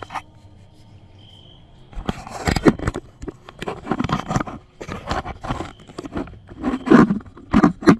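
Handling noise from a hand-held light being adjusted: irregular scraping, rustling and clicking that starts about two seconds in, after a quiet stretch with a faint high steady whine.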